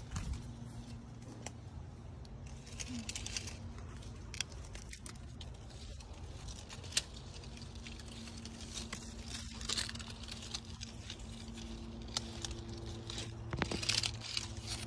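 Soft rustling and scattered small clicks and taps, with a busier stretch of rustling near the end, over a faint steady low hum.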